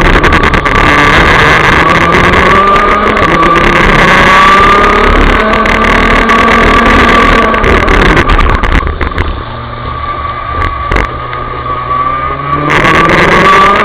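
Rotax DD2 125 cc two-stroke kart engine at racing speed, recorded onboard, its pitch climbing again and again as it pulls. About nine seconds in it turns quieter and duller for nearly four seconds, then comes back loud near the end.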